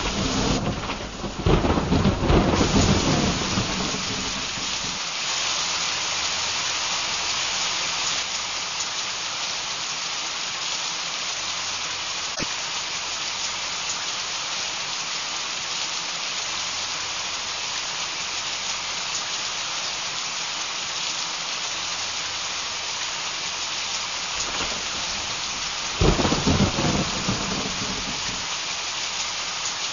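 Steady heavy downpour of rain, with two peals of thunder: a long loud one in the first few seconds and a shorter one that breaks suddenly about 26 seconds in.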